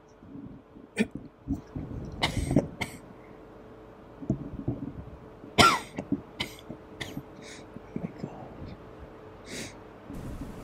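A young man's voice, acting a distressed character, making non-speech crying sounds: irregular sniffles, shaky breaths and cough-like sobs. The loudest comes about halfway through, a sob that falls in pitch.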